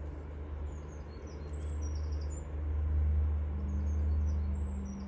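Small birds chirping in short high calls over a steady low rumble that swells in the middle and eases near the end, with a low hum joining about halfway through.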